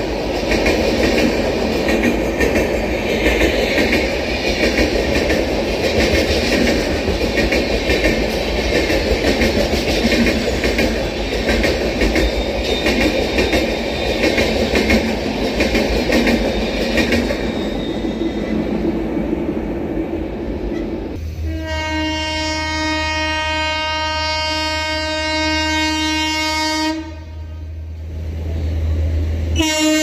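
An Indian express train running through the station at speed, its wheels clattering loudly on the rails, with the noise fading after about 17 seconds. About 21 seconds in, a train horn sounds one long, steady blast lasting about six seconds, then stops. Another horn blast starts near the end.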